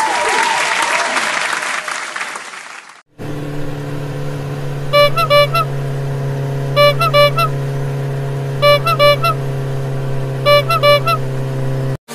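Applause fades out over the first three seconds. Then comes a steady vehicle engine hum, the sound effect for an animated JCB backhoe loader, with a double horn beep four times about two seconds apart. The engine sound stops abruptly near the end.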